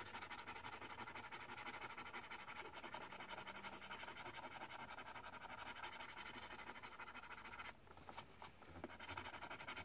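Faint, rapid scratching at the scratch-off panel of a Pokémon code card, pausing for about a second near the end and then starting again.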